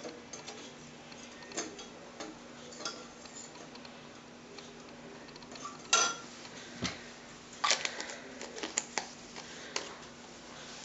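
Metal teaspoon stirring liquid in a small glass bowl, clinking and tapping against the glass in scattered light taps. The sharpest tap comes about six seconds in and a quick run of taps follows near eight seconds.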